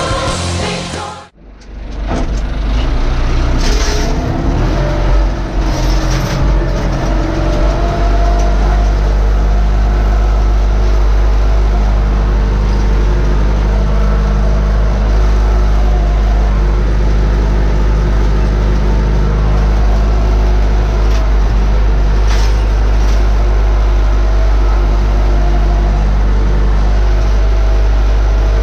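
Music cuts off about a second in. Then the Massey Ferguson 590 tractor's four-cylinder Perkins diesel runs loud and steady while pulling a field harrow, heard from inside the cab.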